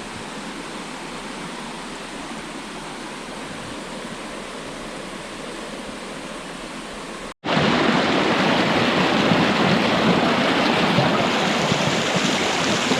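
Flowing river water, a steady rush; about seven seconds in it cuts abruptly to much louder, fuller rushing water.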